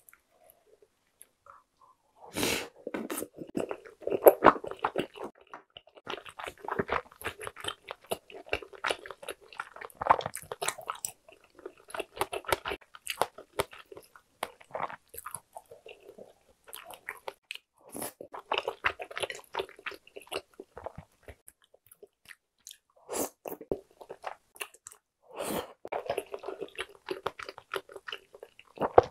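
A person chewing spicy tteokbokki close to the microphone: wet, sticky mouth sounds and small clicks, starting about two seconds in and coming in bursts with short pauses.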